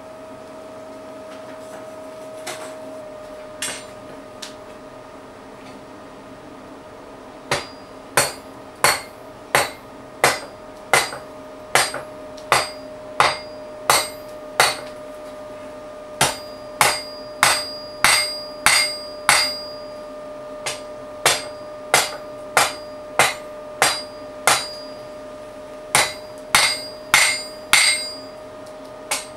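Hand hammer forging a red-hot bar on an anvil: a few light taps, then from about seven seconds in steady blows about one and a half a second, in runs broken by short pauses, each with a brief metallic ring. A steady hum runs underneath.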